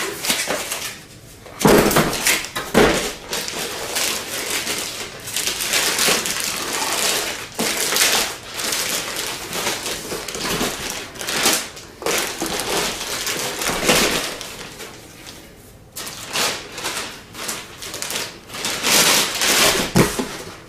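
Plastic bag crinkling and cardboard packing rustling and scraping as a radio wrapped in plastic with cardboard end inserts is lifted out of its carton and unwrapped, on and off, with a few sharper knocks of cardboard.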